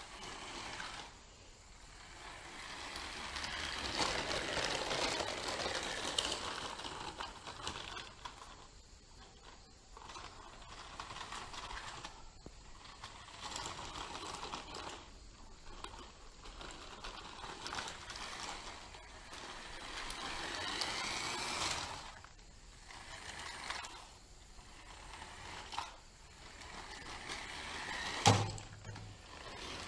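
Small electric motor and plastic gearbox of a New Bright RC buggy whirring in stop-start bursts as it drives on and off. The motor is tiny and underpowered. A sharp knock comes near the end.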